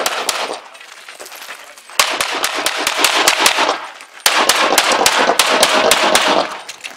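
Rapid pistol fire from an Open-division .38 Super Comp race gun: a fast string of shots ends about half a second in, and after a short pause two more fast strings of about two seconds each follow, with a brief break between them.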